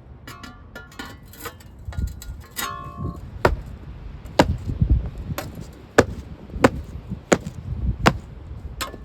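Patio pavers clinking against each other with short ringing tones as they are handled, then a steady series of sharp knocks, about three every two seconds, as the pavers are worked into place.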